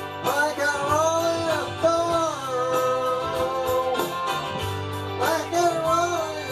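A song: a singing voice with guitar accompaniment, the voice holding long notes that bend in pitch, in three phrases.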